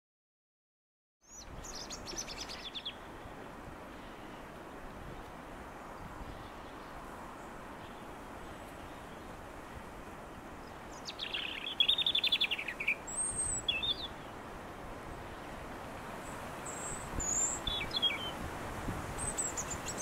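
European robin singing: short phrases of thin, high, warbling notes a few seconds apart, the loudest about halfway through, over a steady outdoor hiss. The sound begins after about a second of silence.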